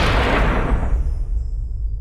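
The tail of a loud blast-like sound effect: the hiss dies away over about a second, leaving a low rumble.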